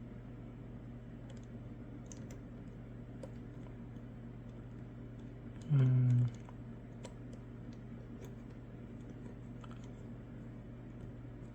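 Faint, scattered light clicks and ticks of a disc-detainer pick turning the discs inside an Anchor Lås padlock. About halfway through there is a brief low hum, lasting about half a second.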